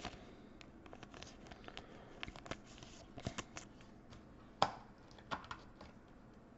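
Quiet handling of a trading card and a clear plastic card sleeve: scattered light clicks and soft rustles, the loudest about four and a half seconds in.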